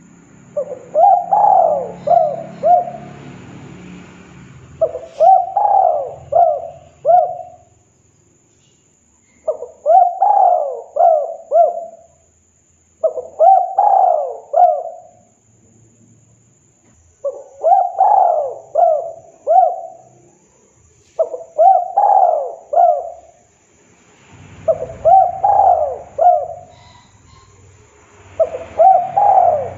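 Spotted dove cooing: phrases of three or four coos, repeated about every four seconds, eight phrases in all.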